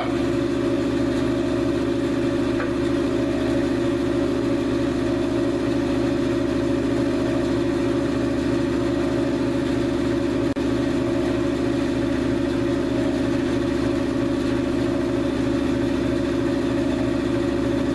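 Band saw running unloaded with no cut under way: a steady hum that holds one pitch throughout.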